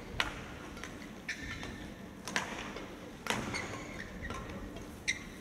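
Badminton rally: sharp racket strikes on a shuttlecock, roughly one a second, with players' footwork on the court floor.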